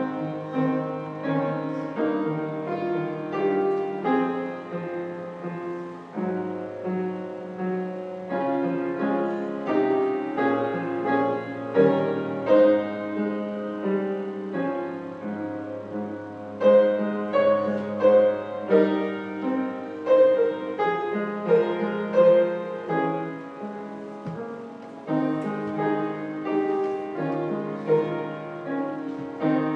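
Piano playing a slow, quiet meditative piece, with sustained chords and a melody of separate notes.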